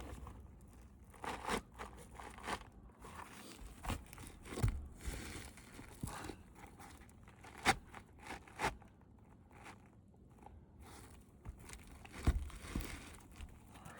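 Asphalt roof shingles being worked by hand: irregular gritty crunching, scraping and tearing, broken by scattered sharp knocks, the loudest a little past halfway and again near the end.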